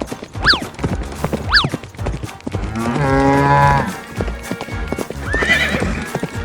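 Cartoon background music with sound effects: quick clip-clop footfalls, two falling whistle-like slides early on, then a long animal call about three seconds in and a shorter, higher call near the end.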